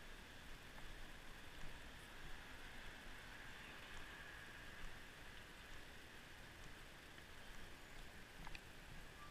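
Faint, steady hiss of distant road traffic, swelling slightly about four seconds in.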